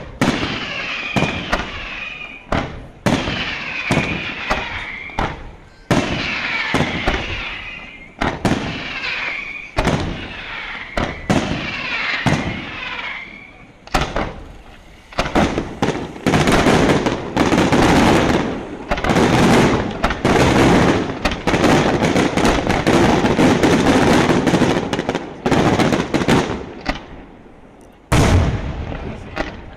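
Daytime fireworks going off in sharp bangs: spaced reports at first, then from about fifteen seconds in a dense, rapid barrage of bursts. It thins out near the end before one more heavy bang.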